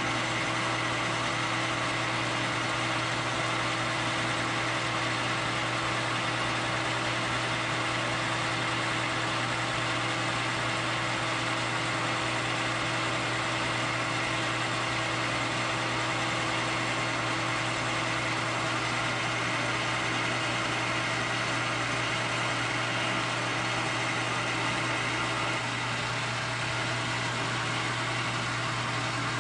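Metal lathe running steadily with a low hum while turning a black Delrin bar. It gets slightly quieter near the end.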